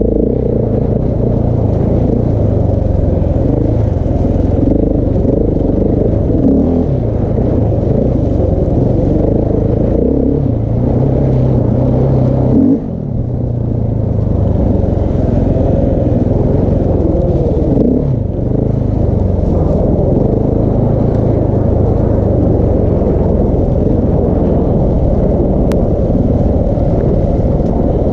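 Single-cylinder engine of a KTM 690 Enduro R, breathing through a Wings exhaust with the large dB killer, pulling off-road under constantly changing throttle, its pitch rising and falling. The throttle snaps shut near the middle, dropping the sound sharply for a moment, and eases off again briefly about two-thirds of the way through.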